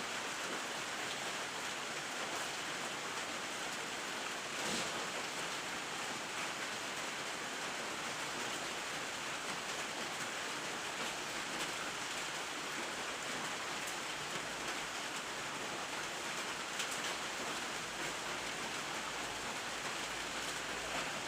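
Steady rain falling: an even hiss with a few faint drop ticks and one soft knock about five seconds in.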